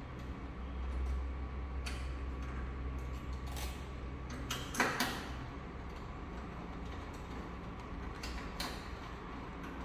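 Scattered clicks and knocks from cables being fitted to breaker terminals inside a PV combiner box, the loudest about five seconds in, over a steady low hum.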